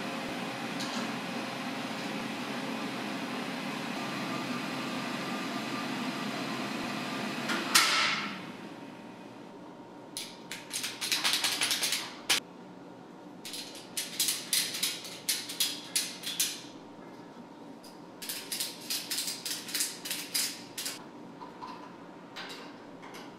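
A steady mechanical hum for the first several seconds ends in one sharp thump. Then come three runs of rapid ratcheting clicks from a ratchet strap being cinched, strapping the vertical mill's Z-axis head in place so it cannot move once the ball screw comes out.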